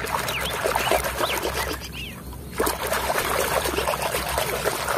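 Water splashing and bubbling as a hand scrubs a muddy toy excavator under water, with a short lull about two seconds in.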